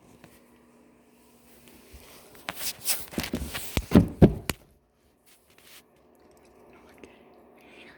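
A quick run of knocks and rattling lasting about two seconds, loudest near the end, with faint room noise before and after.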